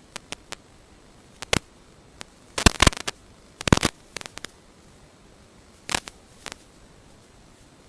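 Irregular sharp clicks and crackles over a faint steady hiss, with the densest cluster about three seconds in.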